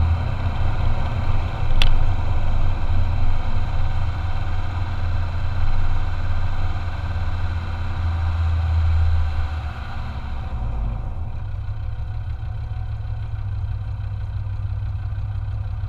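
Land Rover Discovery 2's Td5 five-cylinder turbodiesel running at low revs. About ten seconds in, the deep engine note drops and settles into a steadier idle. There is a single sharp click about two seconds in.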